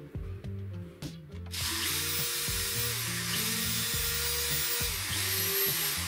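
Cordless drill running in three spurts from about a second and a half in, each ending with a brief dip before the motor picks up again, over background music.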